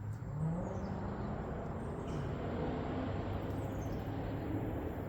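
A motor vehicle running with a steady low rumble and a shifting engine pitch, with a few faint bird chirps over it.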